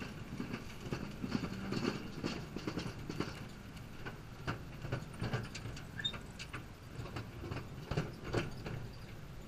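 Narrow-gauge train's open passenger cars rolling along the track: a low running rumble with frequent irregular clicks and knocks from the wheels on the rails.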